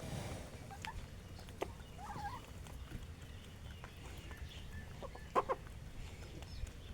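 Domestic chickens, a rooster and hens, clucking now and then while feeding on grain, with a short wavering call about two seconds in and a few sharp clicks, over a low steady rumble.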